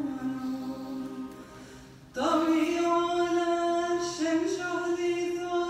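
Choral singing in long, held notes; the phrase fades away about two seconds in, then a new phrase comes in loudly on a sustained note.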